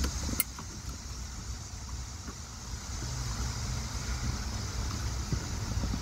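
Plastic wiring connectors being handled and clipped back onto a car's steering column: one sharp click about half a second in, then a few faint taps, over a steady low rumble and hiss.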